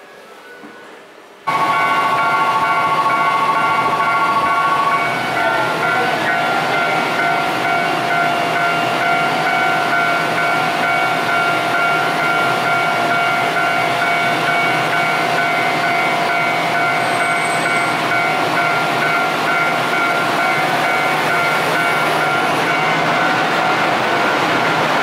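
Tokyu Setagaya Line 300-series tram standing at the platform: a steady rushing noise from its onboard equipment with several whining tones held over it. It starts suddenly about a second and a half in, and one tone gives way to a lower one a few seconds later.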